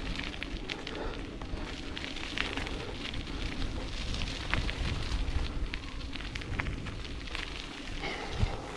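Wind buffeting the microphone while riding a bicycle, with a steady crackle and crunch of tyres rolling over a gravel path and a sharper knock near the end.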